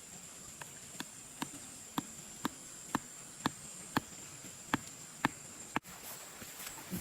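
About ten sharp clicks or knocks at a steady rate of roughly two a second, over a steady high-pitched insect drone.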